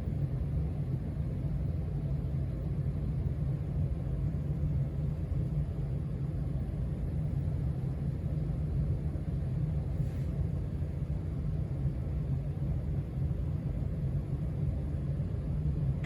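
Casablanca Stealth ceiling fan coasting down after being switched off, its blades moving air in a steady low rumble. It has new bearings, so it spins down for a long time. There is a faint click about ten seconds in.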